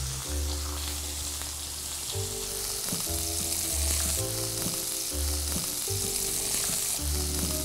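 Steaks searing in hot oil in a cast iron skillet: a steady sizzle and hiss. Soft background music plays held notes underneath.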